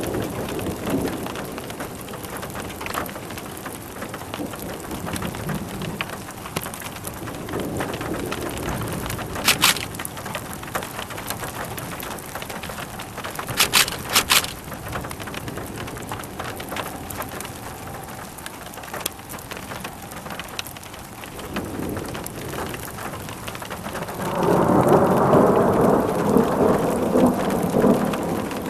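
Steady heavy rain through a thunderstorm, with distant thunder rumbling now and then and a few sharp clicks about a third of the way in. Near the end a loud, long roll of thunder swells up and is the loudest sound.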